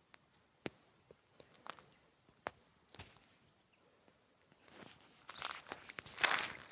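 A few faint scattered clicks, then footsteps starting about four and a half seconds in and growing louder.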